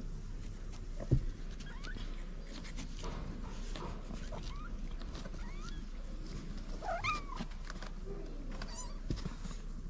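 Young kittens giving short, high, squeaky mews several times, the strongest about seven seconds in. A single knock about a second in.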